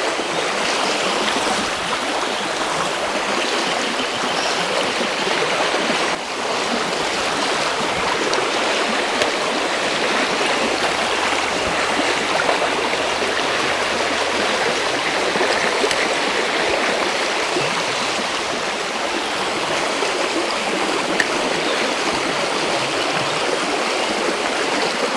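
Creek water running, a steady rush without a break.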